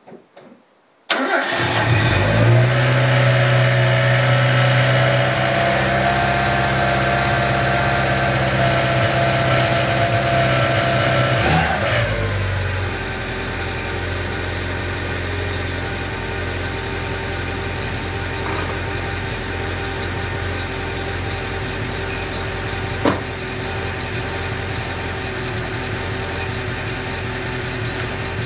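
A 1987 Mazda 323's petrol engine catches on a cold start at −10 °C after barely any cranking. It runs at a high cold fast idle, and about ten seconds later the idle drops a little lower, then runs steadily.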